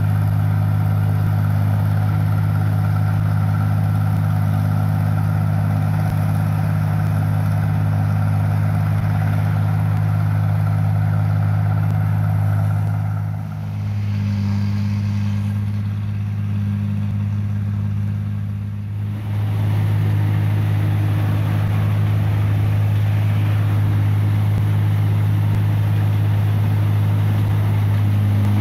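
New Holland 1545 combine harvester running steadily at work in a rice paddy, a constant low diesel drone. About halfway through it falls quieter and farther off for several seconds, then comes back up loud.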